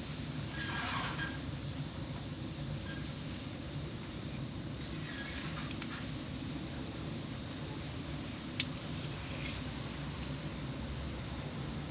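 Steady low rumble of wind on the microphone, with a few brief scraping swishes and two sharp clicks.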